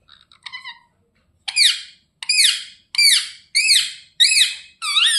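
Ringneck parrot giving a run of shrill, high-pitched squawks, one roughly every half second after a few quieter chirps in the first second.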